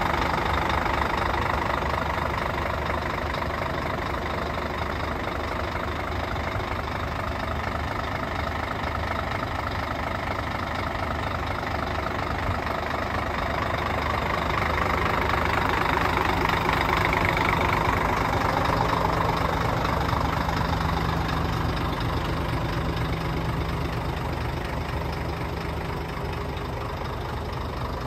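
Scania 114C 340's 11-litre inline-six diesel idling steadily. It grows louder for a few seconds in the middle, then eases off.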